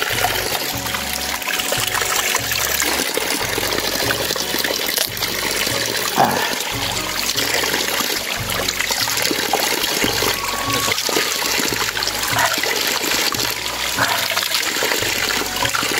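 Water running steadily from a dhara, a cut pipe spout fed by a spring, splashing onto rocks.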